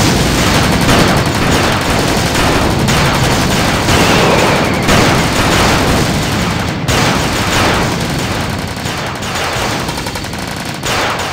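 Battle sound effects: continuous massed rifle and machine-gun fire with explosions mixed in, loud and dense without a break.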